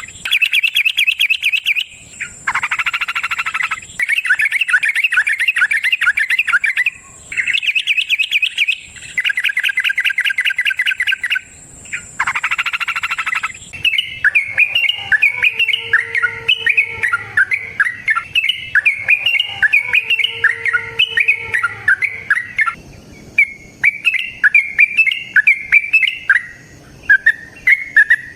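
Yellow-vented bulbul (trucukan) singing its rapid bubbling chatter. In the first half the phrases come in repeated bursts of about two seconds with short gaps between them. About halfway in, the song changes to a more continuous, busier chatter, with a lower wavering note sounding twice underneath.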